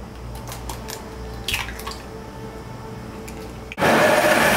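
Vitamix blender cutting in suddenly near the end and running fast with a loud, even whir as it blends banana and eggs into batter. Before that, a few light clicks and taps at the jar as the eggs go in.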